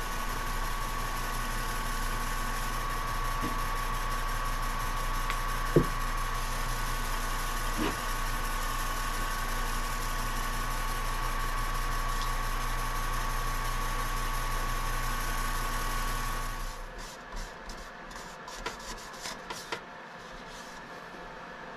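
Wood lathe motor running at a steady speed with a maple bowl spinning on it, then switched off about seventeen seconds in, its hum cutting off; afterwards only a few light clicks and knocks.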